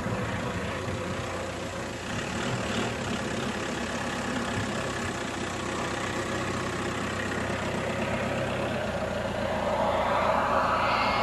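Turbine engine of a large-scale RC Lockheed U-2 model jet in flight, a steady distant rushing hiss that grows louder near the end as the model comes closer, with a whine rising through it.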